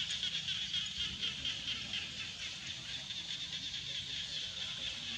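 Steady high-pitched chorus of insects with a rapid pulsing buzz.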